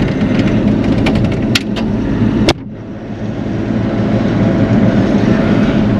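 Bobcat E42 mini excavator's diesel engine running steadily, with light rattles and one sharp clank about two and a half seconds in. After the clank the engine drops in level, then builds back up.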